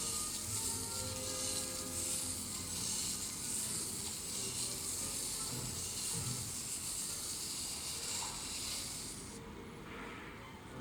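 A CPU die being rubbed on fine P1500 sandpaper: a steady scratchy hiss that stops abruptly about nine seconds in.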